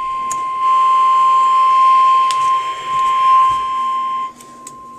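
NOAA Weather Radio 1050 Hz warning alarm tone: a single steady high-pitched tone signalling that a severe-weather warning message is about to be read. A little past four seconds in it drops to a quieter level and keeps sounding.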